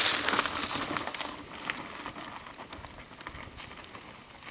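Trek Rumblefish 29er mountain bike tyres rustling through dry fallen leaves as the bike passes close by, loudest at the start and fading as it rides away, with scattered small clicks.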